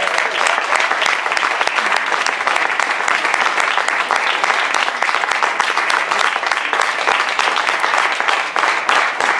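Audience applauding: dense, steady clapping that holds at an even level throughout.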